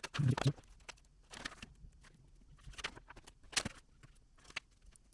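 A voice trailing off, then a few light, separate clicks and taps against a quiet background.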